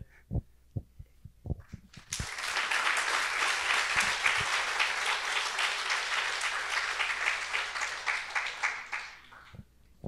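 Audience applauding at the end of a talk. The clapping starts abruptly about two seconds in after a few soft thumps, holds steady, and dies away near the end.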